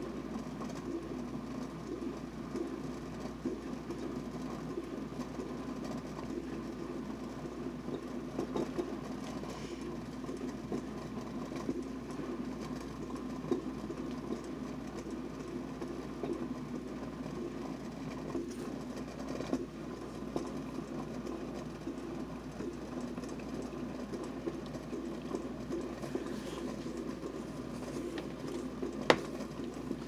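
Glass electric kettle heating about a quart of water near the boil, with a steady bubbling rumble from the water. A single sharp click comes near the end.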